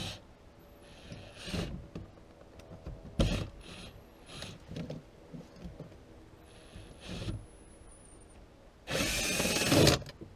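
Hand tools working on a car door's plastic trim panel and its screw: scattered clicks and knocks, then a loud rasping scrape of about a second near the end.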